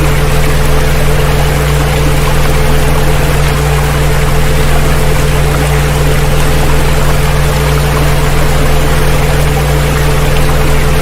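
Several steady low electronic tones held together without change over a constant wash of water noise: a layered "healing frequency" drone mixed with a water-sound recording.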